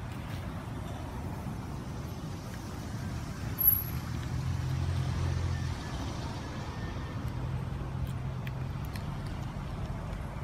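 Low steady engine rumble, swelling twice into a stronger hum, with one sharp click a little over a third of the way in.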